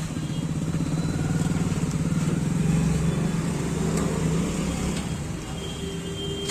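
Steady low rumble of a motor vehicle's engine idling, with a fine rapid pulsing.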